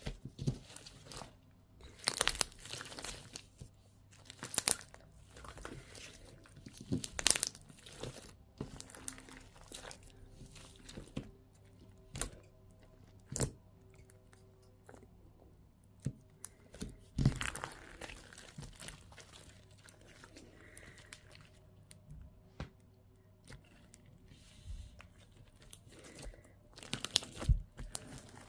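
Crunchy Christmas slime with foam cubes being squeezed and pressed by hand, giving irregular crackling and crunching pops, some sharp and loud, some soft.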